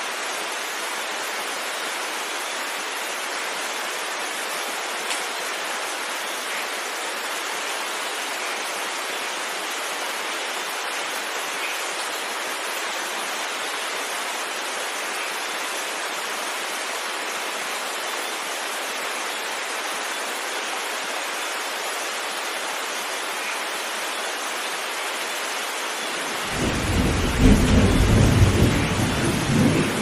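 Heavy rain falling steadily, with a loud rumble of thunder breaking in about three and a half seconds before the end.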